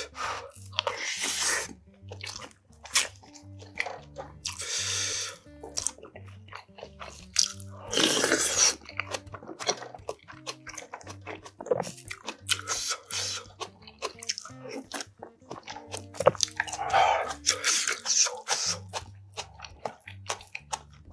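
Close-miked eating: chewing and biting mouth sounds, with spoon and chopstick clicks against bowls and the stew pot. Soft background music plays under it.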